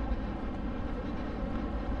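Steady low rumble of outdoor ambience, strongest in the deep bass and unchanging throughout.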